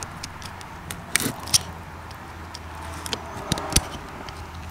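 Light clicks and taps of a cast piston being handled and turned on a wooden workbench, with a wooden pick working at its oil ring, over a steady low hum. The taps are scattered and irregular, a few sharper ones about a second in and again past three seconds.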